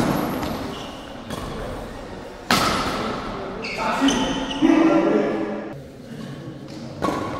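Badminton rackets striking a shuttlecock in a doubles rally: sharp hits a second or two apart, the loudest about two and a half seconds in and again near the end, each ringing on in the hall's echo. Voices in between.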